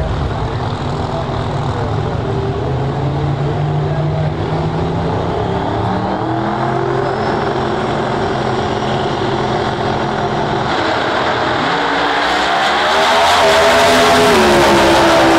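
Two drag-racing cars' engines running at the starting line, then launching at full throttle about twelve seconds in. The sound rises sharply in loudness, and the engine pitch climbs as the cars accelerate away down the track.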